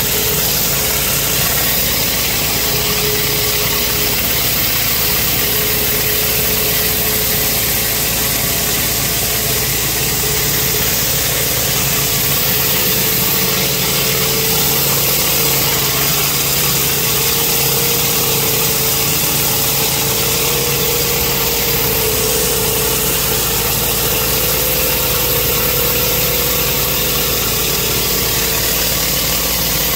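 Pressure washer running steadily: a constant engine hum under the loud hiss of high-pressure water jetting from a rotary surface cleaner onto concrete.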